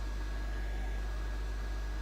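Steady low electrical hum with faint hiss and a thin high whine, unchanging throughout; no distinct event stands out.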